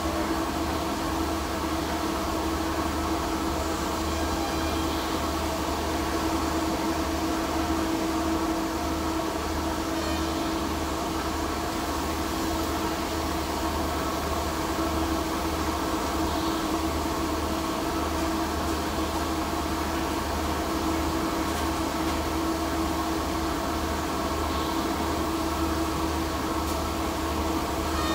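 Steady machinery hum: a low, fast-fluttering throb under several held tones, with a faint hiss above, unchanging throughout.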